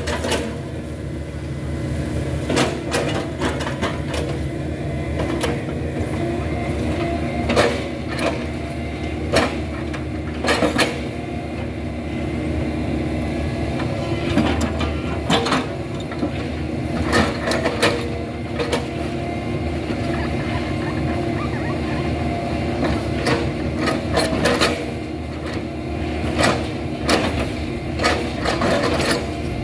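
Hitachi hydraulic excavator's diesel engine running steadily under load, with sharp knocks at irregular intervals, sometimes two close together, as its chipping knife bucket chops into a felled oil palm trunk.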